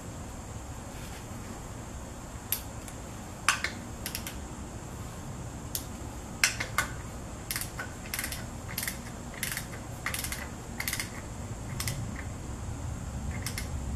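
Sharp metallic clicks and clinks of a ratchet with an oil-filter cup socket as a new oil filter is tightened. A few separate clinks come first, then about seven seconds in a click follows roughly every two-thirds of a second.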